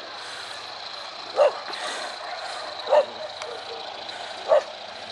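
A dog barking three times, about a second and a half apart, over a steady high hiss.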